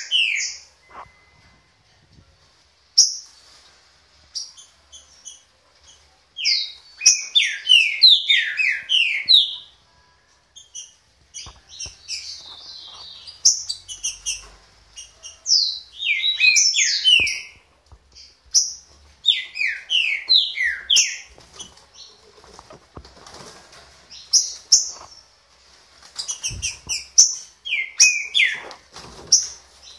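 Green-winged saltator (trinca-ferro) singing loud phrases of quick, descending whistled notes, in repeated bursts of one to three seconds with short pauses between them. A few faint knocks fall between the phrases.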